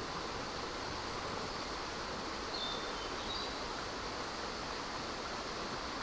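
Steady rushing of a flowing river. A few faint, short, high chirps come about two and a half to three and a half seconds in.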